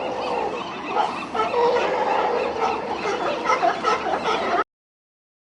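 A group of seals calling, many short pitched calls overlapping at once. The sound cuts off suddenly about four and a half seconds in.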